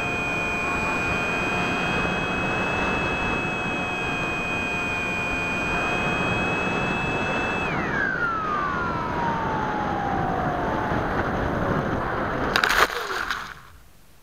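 The Bixler 2's electric pusher motor and propeller whine steadily at a high pitch over rushing air. About eight seconds in the throttle is cut and the whine slides down as the plane glides. Near the end a short burst of knocks and rustling comes as it touches down in tall grass.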